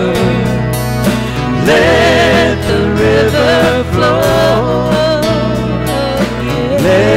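Live church worship band playing a slow song: acoustic guitar, drums, bass and keyboard under a woman's wavering sung melody.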